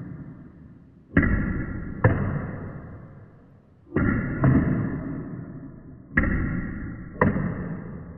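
Table tennis ball bouncing on the table and being struck by the bat during backhand drives, played back in slow motion. It comes as three pairs of deep, drawn-out knocks, each fading away slowly over about a second.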